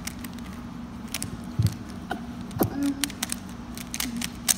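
Plastic 3x3 Rubik's Cube being scrambled by hand: irregular quick clicks and clacks as its layers are twisted, with a couple of duller knocks from handling.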